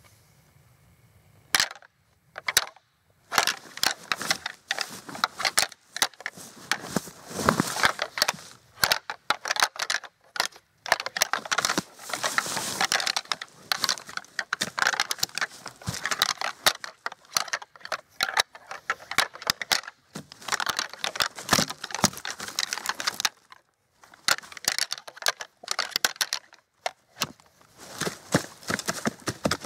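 A pair of rattling antlers clashed and ground together in quick runs of sharp clacks and clicks, starting about a second and a half in, with a few short pauses: the rattling imitates two bucks fighting during the rut.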